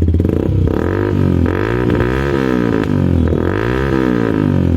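Yamaha R15 V2's single-cylinder engine running through a Yoshimura aftermarket exhaust, revved up and let fall back twice with a deep, heavy-bass note.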